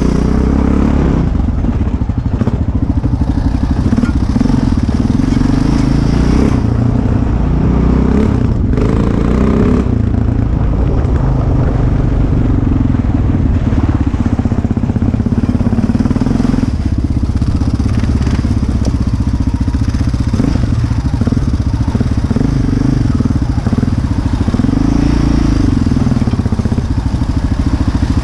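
Sport ATV engine running under throttle while riding a dirt trail, heard from on board, its pitch rising and falling as the rider works the throttle.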